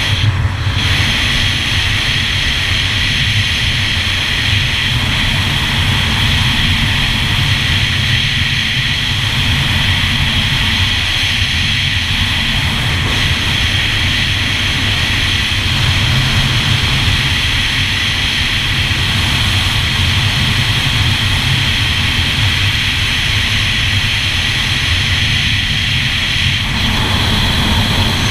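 Yamaha GP1200R personal watercraft's two-stroke three-cylinder engine running steadily while under way.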